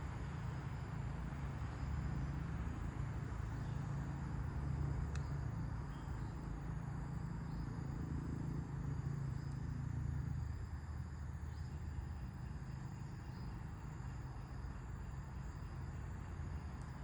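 Low wind rumble that eases about ten seconds in, under a steady high insect chorus of crickets, with a few faint brief chirps.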